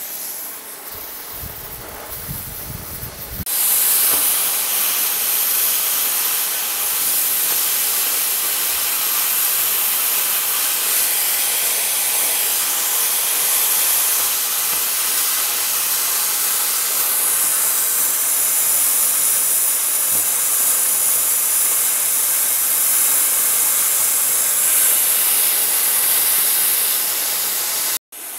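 Oxy-fuel cutting torch on a Mathey Dearman Mini Jolli pipe beveler burning through steel pipe, with a steady hiss of the cutting jet. The hiss is softer for the first few seconds, gets louder from about three and a half seconds in, and breaks off for an instant near the end.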